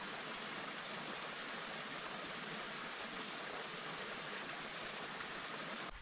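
Steady, even rush of flowing water from a mountain stream, cutting off abruptly at the very end.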